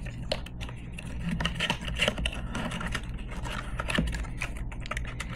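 A sunscreen tube being pushed back into its tight cardboard box: cardboard scraping and rustling, with many small clicks.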